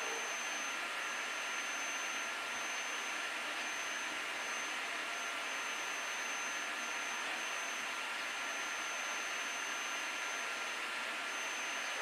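Steady, even hiss with a faint constant high whine, unchanging throughout. No sound from the bird or its feeding is heard.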